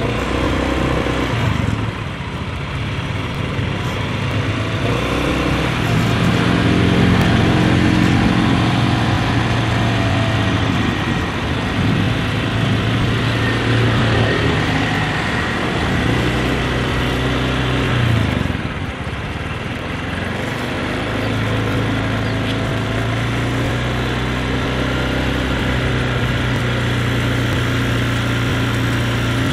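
Motorcycle engine running at low, steady road speed, its note rising a little about a quarter of the way in and dropping briefly about two-thirds of the way through.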